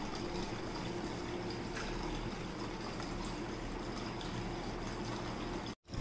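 Small cement tabletop cascade fountain running: water pours from its spout into a tier of bowls and splashes steadily down into the basin. The sound breaks off for a moment just before the end.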